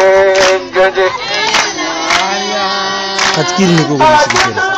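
A singer chanting long, held, bending notes through a handheld megaphone, with a lower voice sliding down about three and a half seconds in. Sharp strikes keep a steady beat a little under two a second underneath.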